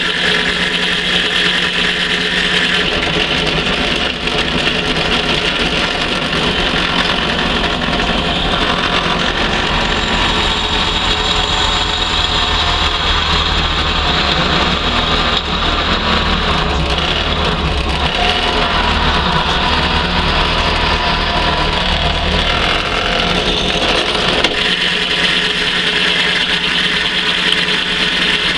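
Bench pillar drill running steadily with a constant motor hum while its 4 mm bit drills rivet holes through a catapult handle's scales.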